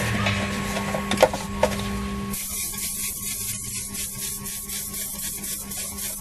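A steady hum with a few sharp knocks. About two seconds in it gives way to the high hiss of aerosol spray paint, with a fast, regular rattle running through it.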